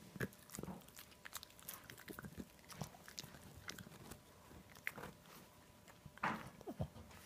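Boston terrier gnawing a boiled pork rib bone: small, irregular crunches and clicks of teeth on bone and meat, with a louder burst of noise about six seconds in.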